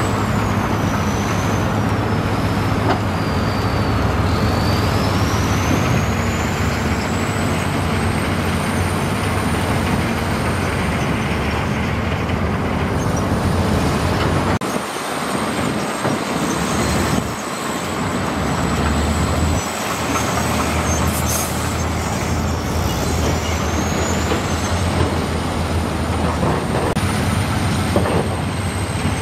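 Heavy diesel earthmoving machinery running under load: a steady, deep engine drone with a thin high whine that falls and rises twice.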